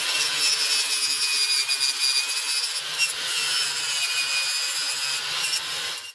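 Corded electric angle grinder running at speed, its spinning head scouring a metal grill grate: a steady high whine over dense scraping noise.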